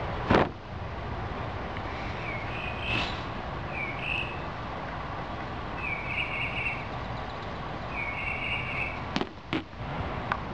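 Birds chirping in short calls every second or two over a steady background hiss, with a sharp click about a third of a second in and two quick clicks near the end, likely from cartridges being handled and set down.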